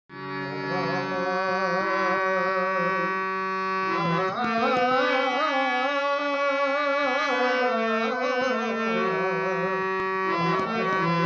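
Harmonium playing sustained chords and melody while a man sings an Indian classical-style vocal line over it, with wavering ornaments on held notes.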